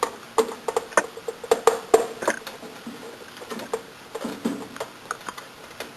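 Irregular light clicks and taps of hands and a small tool working wires into a terminal block, thickest in the first two and a half seconds and thinning out after.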